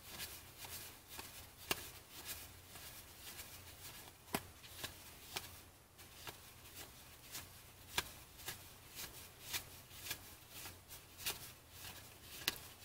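1990 Fleer football trading cards being flipped through by hand: faint, irregular ticks and slides of card stock, with a few sharper snaps.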